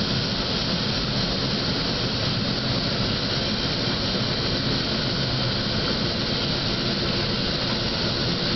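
Small high-wing plane's engine running steadily, heard inside the cabin as the aircraft rolls along the runway after touchdown.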